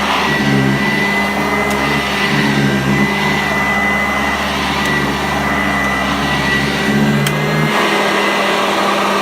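Sanitaire SC684 upright vacuum cleaner running steadily with a high motor whine. Its low hum shifts in a regular pattern about once a second.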